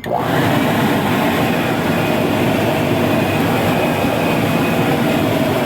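Air blower switched on and blowing a steady stream of air into a charcoal fire to raise its heat, a loud even rush with a faint motor whine, starting abruptly.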